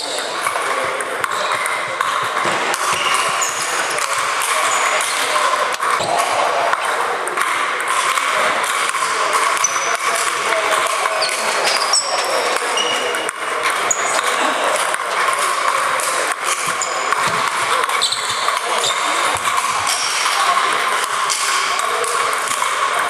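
Table tennis balls ticking off tables and sandpaper bats, many short sharp hits from several tables at once, over a steady hubbub of voices that echoes around a large sports hall.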